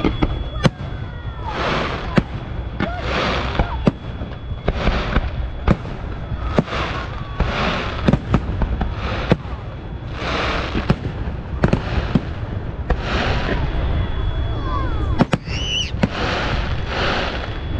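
Fireworks display: many sharp bangs from shells and mines bursting, with a hissing, crackling shower of stars about every second or so.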